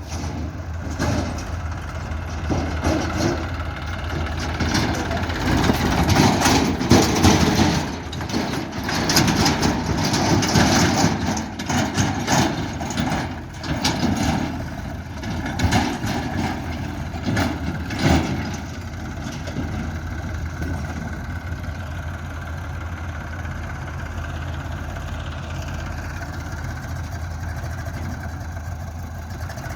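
Heavy diesel engine of a construction machine running. For roughly the first eighteen seconds it is louder and uneven, with repeated clanks and knocks. After that it settles to a steady idle.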